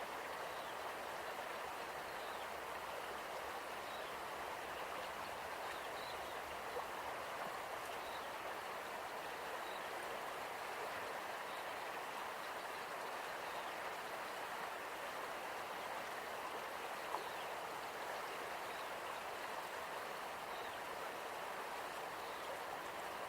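The Ahuriri River flowing, a steady even rush of water, with faint high bird chirps here and there.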